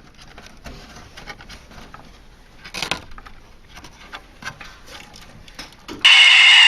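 Light clicks and knocks of plastic and metal TV parts being handled and snapped into place, with a brief louder clatter about three seconds in. Near the end, a loud sound with several slowly falling tones cuts in abruptly.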